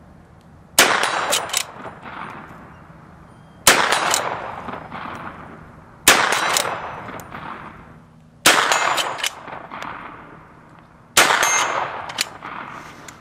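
Cimarron 1876 Winchester lever-action rifle in .45-60 firing five shots, about two and a half seconds apart. Each shot is a sharp crack followed by a rolling echo that dies away over a second or two.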